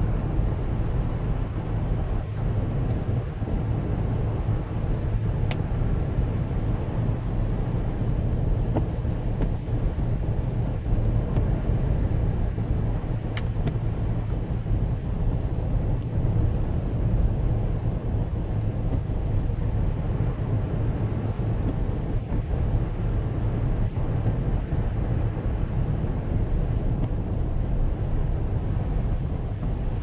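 Car driving on a snow-covered road, heard from inside the cabin: a steady low rumble of engine and tyre noise.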